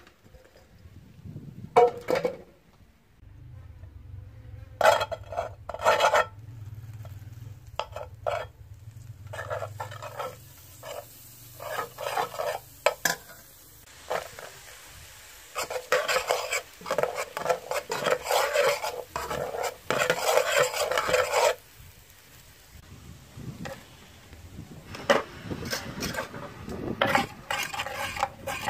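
Metal spoon scraping and clinking against an aluminium cooking pot while butter, garlic and spices are stirred. It comes in scattered strokes, with a longer run of steady scraping in the middle.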